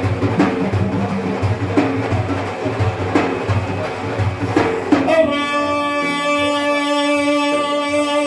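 Large frame drum (daf) beaten in a steady rhythm. About five seconds in, a man's voice takes up one long held sung note that carries on to the end.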